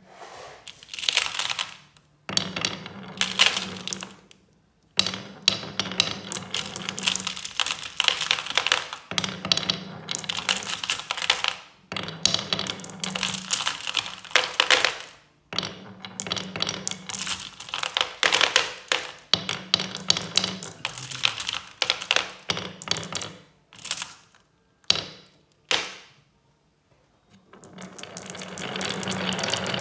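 Marbles rolling and clattering down rain-gutter and wooden-rail tracks: repeated runs of a few seconds each, a dense rattle of clicks over a low rolling rumble, with short pauses between runs. Near the end a steadier rattling rush builds up.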